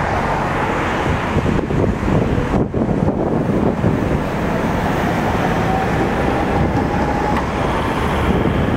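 Two-car Tatra T3SUCS tram set running away along a street track, a steady rumble mixed with road traffic. A faint thin whine sounds for a couple of seconds in the second half.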